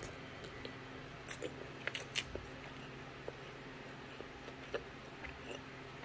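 Chewing and handling of a seaweed-wrapped pork floss rice ball: scattered soft mouth sounds and small sharp clicks over a faint steady low hum.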